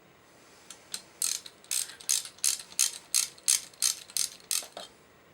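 Ratchet wrench clicking in quick repeated strokes, about three a second, as a bolt is worked loose on a motorcycle engine being taken apart.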